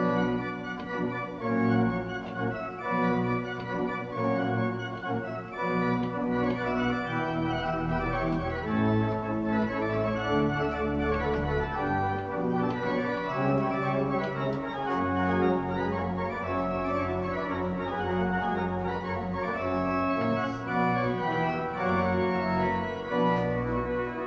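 Church pipe organ playing a Baroque piece: it comes in suddenly on a full chord, then moves through changing notes and chords over deep sustained bass notes.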